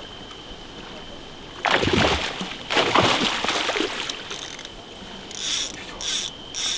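Grass carp thrashing and splashing at the surface in a landing net, two heavy bouts of splashing about two and three seconds in. Near the end a run of short, high rasping bursts repeats about twice a second.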